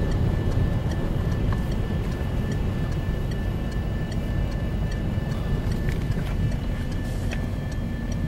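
Steady low road and engine rumble heard from inside a moving car's cabin, with a faint, evenly spaced ticking running through it.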